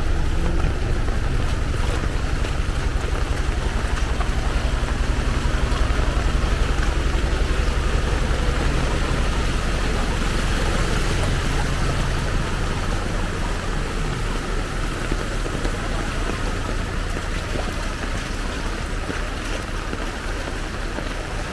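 A motor vehicle's engine running close by, a low steady hum that fades over the second half. Under it is the steady rush of heavy rain and flowing floodwater.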